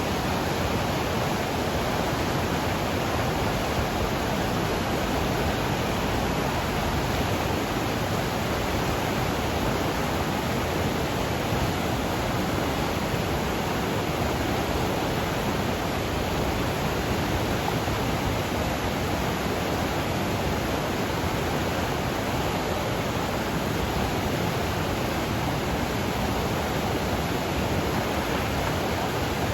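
Flooded mountain river rushing, swollen with snowmelt runoff: a steady, dense roar of water with no breaks.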